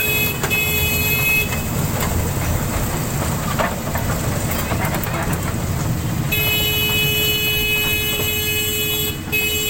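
Toy train running with a steady low rumble. A steady horn tone sounds for the first second and a half, then again from about six seconds in almost to the end.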